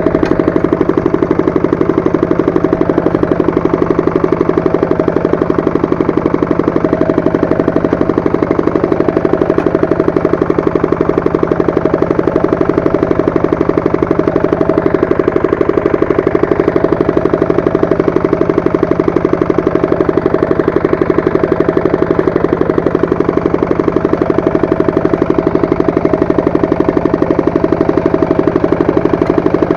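Walk-behind tractor engine running steadily with a fast, even firing beat, as when driving a rotary tiller. Its pitch shifts slightly about halfway through.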